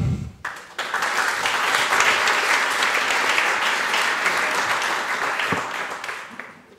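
Audience applauding. The applause starts about a second in and dies away near the end.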